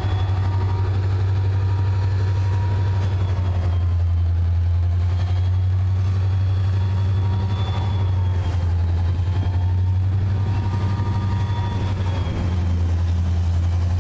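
Diesel freight locomotive working under heavy load, its engine giving a steady deep drone with fainter thin whining tones above it as it hauls a train of loaded hopper cars past.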